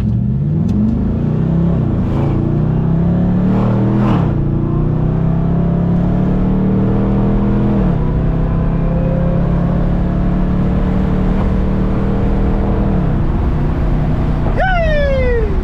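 Chevrolet Chevelle's big-block V8 accelerating through the gears. The revs climb, drop at upshifts about four and eight seconds in, then hold steady before easing off near the end.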